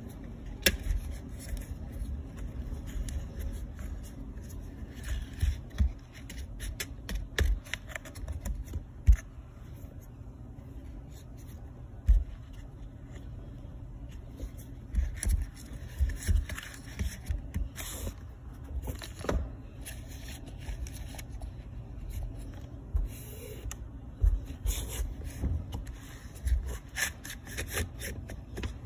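Stihl trimmer recoil starter being handled while its starter rope is wound onto the plastic rope rotor: the cord scraping and rubbing through the housing, with scattered clicks and knocks of the plastic parts.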